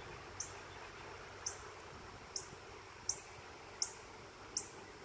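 An insect, cricket-like, chirping: six short high chirps spaced roughly a second apart, over a faint steady background hiss.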